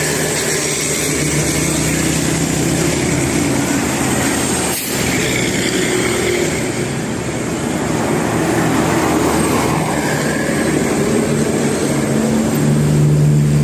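Bus engine and road noise running steadily, with a brief dip about five seconds in; the engine note grows stronger and louder near the end.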